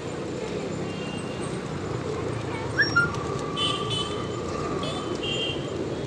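Busy street ambience: a steady rumble of traffic and people. About three seconds in comes a short rising whistle-like note with two sharp peaks, followed by a thin steady tone for about two seconds, with short high chirps now and then.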